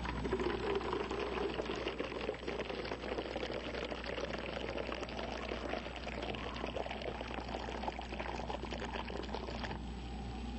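Liquid pouring or running in a steady stream, with a fine splashing crackle, that cuts off abruptly about a second before the end.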